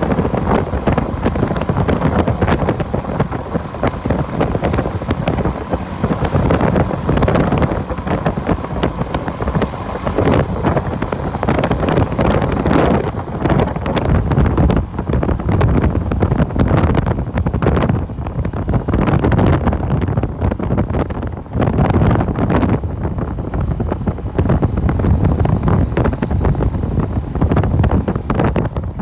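Wind buffeting the microphone of a speeding motorbike, with the bike's engine running under it: a loud rushing that surges and eases every second or two.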